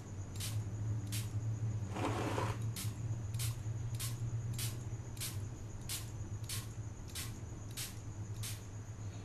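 Spray-painting rig: a steady low hum from the air compressor, with an even, high click about twice a second. About two seconds in, a short hiss of the spray gun fires as chrome solution is sprayed onto the hard hat.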